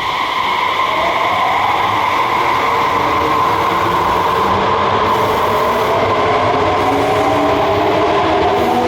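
Electric subway train in motion at the platform, its traction motors whining in several tones that climb steadily in pitch as it picks up speed, over wheel and running noise.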